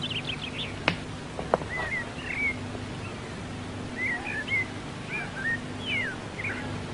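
Birds chirping in short, scattered calls that rise and fall, with two sharp clicks at about one and one and a half seconds in.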